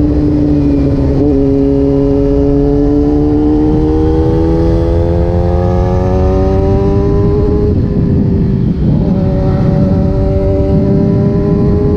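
Kawasaki ZX-10R's inline-four engine running under way, its pitch climbing slowly as the bike gathers speed, over steady wind rush. The engine note breaks briefly about a second in, and again around eight seconds in, then comes back lower and holds fairly steady.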